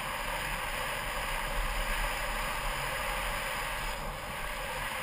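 Steady rush of wind over a GoPro Hero's microphone mixed with rolling tyre noise, from a mountain bike riding fast down a dirt forest trail.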